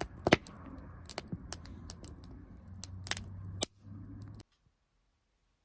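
Wood fire crackling in a fireplace: irregular sharp pops and snaps over a soft low rumble. It cuts off abruptly about four and a half seconds in.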